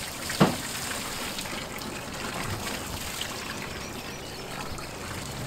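Water from a garden hose splashing and trickling onto a plastic tarp as a pool fills, a steady running-water sound, with one short thump about half a second in.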